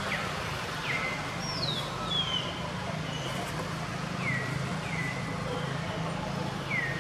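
Short, thin, high calls that fall in pitch, repeated every second or so, over a steady low hum.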